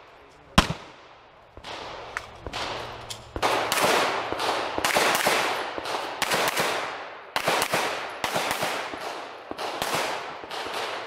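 9mm pistol fired in rapid strings of shots during a practical shooting stage, each string echoing across the range, with a short break in the firing near the middle.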